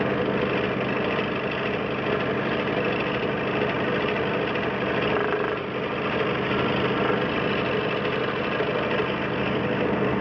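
DeWalt 788 scroll saw running steadily, its motor and reciprocating blade giving an even mechanical hum and buzz.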